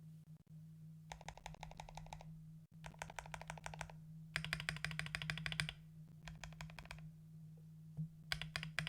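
Mechanical keyboard with lubed Akko Radiant Red linear switches on an FR4 plate, XDA-profile keycaps and an anodized aluminium case, typed on in five quick bursts of rapid keystrokes, the loudest burst in the middle.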